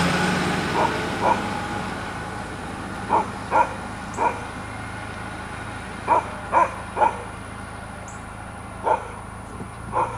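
A dog barking in short single barks, about ten in all, some coming in quick runs of two or three. A low engine hum runs underneath, and a pickup truck's engine fades away over the first couple of seconds.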